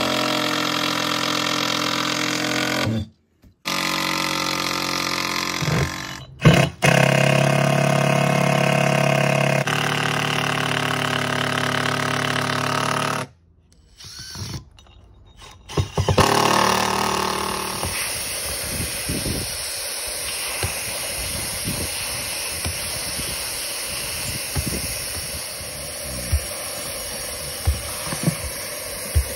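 A cordless drill/driver runs in long steady bursts, driving roofing screws through metal insulation plates into the roof, with abrupt stops. About 16 seconds in, a hand-held hot-air welder takes over, blowing with a steady hiss as the seam of the single-ply roofing membrane is heat-welded, with scattered light clicks.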